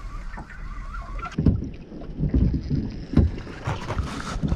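Water slapping against the hull of a small drifting boat in a choppy sea, a run of irregular low knocks and thuds.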